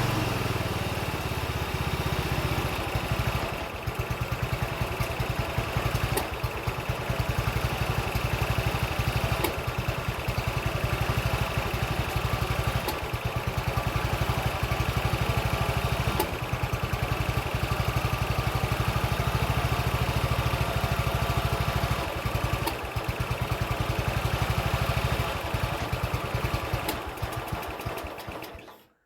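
Briggs and Stratton engine of a Murray riding mower running on a newly installed carburetor. About three seconds in it settles to a lower, pulsing idle, then runs steadily before dying away near the end. The owner judges that it runs well on the new carburetor.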